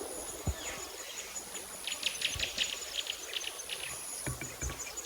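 Background birdsong: a quick run of chirps through the middle, over a high, steady insect trill that switches on and off, with a few soft knocks.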